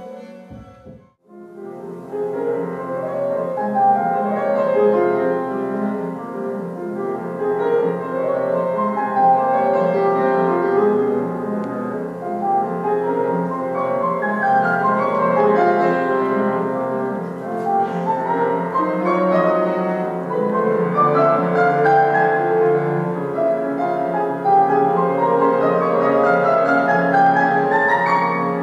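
Instrumental piano music: flowing, stepwise runs of notes, starting after a brief gap about a second in, with a run of rising notes near the end.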